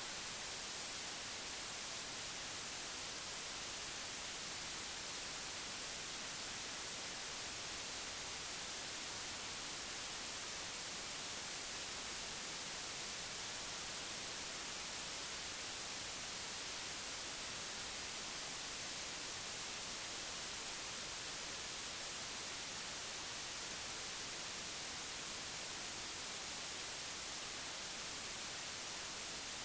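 Television static: the steady, even hiss of an old TV tuned to a channel with no signal, brighter in the high end.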